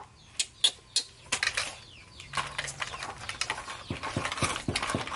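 Light clicks and taps from small hard objects being handled, a plastic toy and a formula milk can: a few spaced clicks at first, then quicker, irregular ones from about two seconds in.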